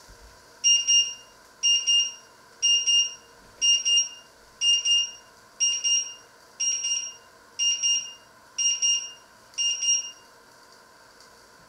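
Electronic timer alarm on a glass-ceramic cooktop beeping: ten high-pitched double beeps about once a second, stopping shortly before the end.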